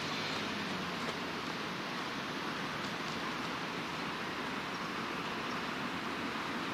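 ES2 'Lastochka' electric train approaching on the tracks, heard as a steady rushing noise of wheels on rail.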